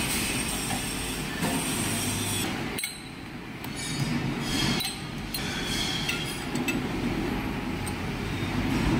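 Metal clinking and clanking from hand tools and clamps as a clutch pressure plate is fixed to a lathe's faceplate, over a steady machine-shop din, with a brief lull about three seconds in.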